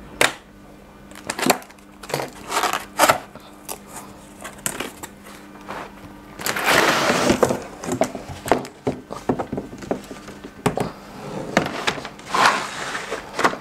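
Cardboard packaging being handled and opened, with a run of knocks and rustles. A longer scraping rush comes about six and a half seconds in, and another near the end, as a hard plastic carrying case comes out and is set down.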